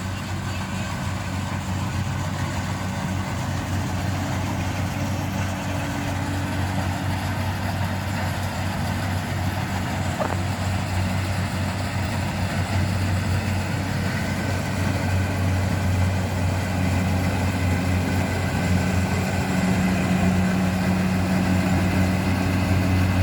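Engine of a rice harvesting machine running steadily with a low hum, slowly growing louder.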